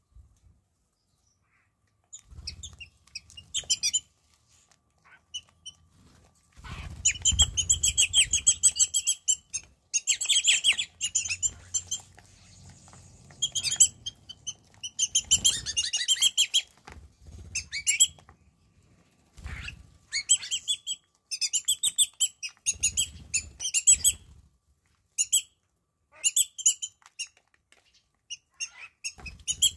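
Wattled starlings calling in bursts of rapid, high chattering notes, beginning about two seconds in, with a few low wing-flap thuds among them.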